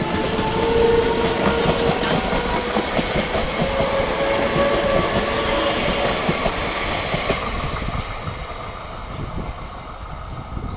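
Electric multiple-unit (EMU) suburban train of Indian Railways passing close by at speed, its wheels clattering over the rail joints, with a steady whine over the first half. The sound fades toward the end as the last coaches go by.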